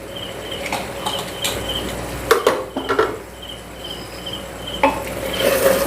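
A metal spatula knocks and scrapes in a pan of frying marinated chicken as it is stirred, letting the water from the yogurt marinade cook off. A high chirping repeats in short pulses in the background.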